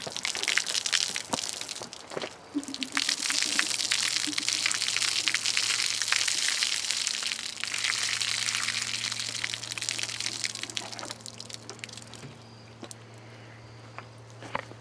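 Water gushing and splashing out of a shot-through plastic milk jug as it is handled and emptied, with plastic crackling. It runs for about eleven seconds and then tapers off.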